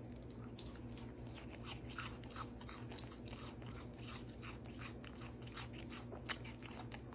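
A young goat kid chewing a crunchy piece of food, with quick faint crunches at about three a second over a low steady room hum.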